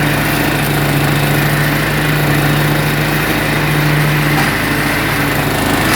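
Zero-turn riding lawnmower engine running steadily under mowing load. Its low drone weakens briefly about four and a half seconds in.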